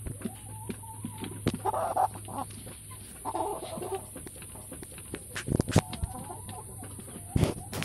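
Chickens clucking, with a few sharp knocks in the second half.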